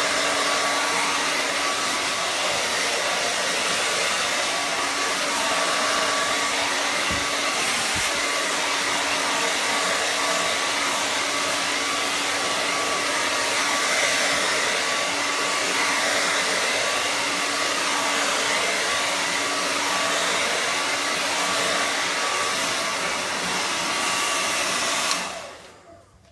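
Handheld hair dryer blowing steadily, with a faint steady hum under the airflow, then switched off abruptly about a second before the end.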